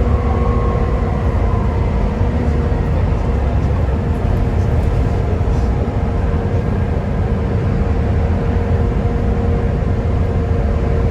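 Volvo B7TL bus's diesel engine running under steady load: a loud, even low drone with a steady whining tone over it.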